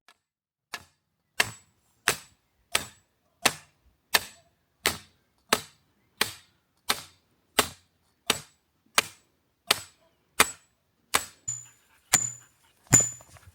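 Sledgehammer driving a fence pole into rocky ground: steady, evenly spaced blows, about three every two seconds, each with a short high ring. The pole is going down without much effort.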